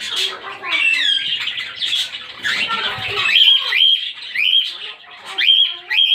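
Pet cockatiels and budgerigars calling: a run of short, rising whistled chirps repeated about every half second, over busier chattering.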